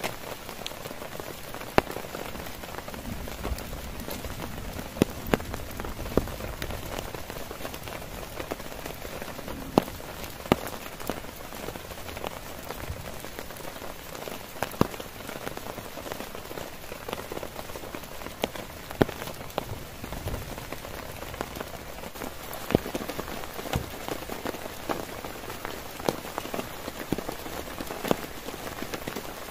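Heavy rain falling steadily on a tent, with sharp, loud drop hits landing irregularly above the even hiss.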